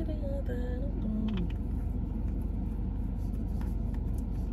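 Steady rumble of a car's engine and road noise heard inside the cabin, with faint singing from the car's music in the first second or so.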